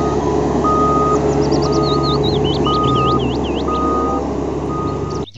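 Single-drum road roller's diesel engine running steadily while a reversing alarm beeps about once a second. Birds chirp in the middle. The sound cuts off abruptly near the end.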